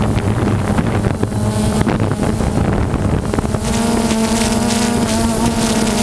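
Quadcopter's electric motors and propellers buzzing steadily, with wind noise on the microphone. About three and a half seconds in, the buzz rises slightly in pitch and grows louder and brighter as the quadcopter climbs.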